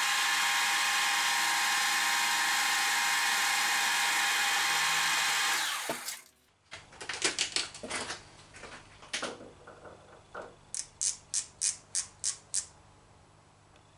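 Metal lathe running steadily while it takes a light finishing cut, then spinning down to a stop about six seconds in. A few handling knocks follow, then a micrometer's ratchet thimble clicks about eight times in quick succession as the diameter is measured.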